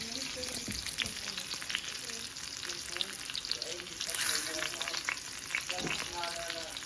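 Floured chicken pan-frying in hot grease: a steady sizzle dotted with frequent crackles and pops, swelling briefly about four seconds in.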